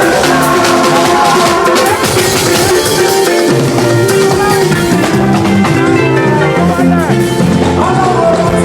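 Loud church band music with a drum kit keeping the beat under a pitched melody.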